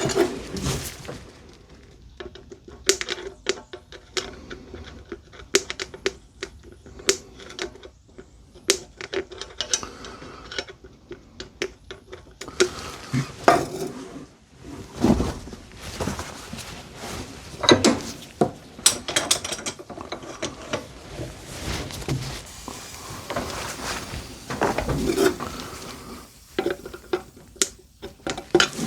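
Irregular metal clinks and knocks as a rusted, seized steel G-clamp is handled and worked with metal tools to free its screw.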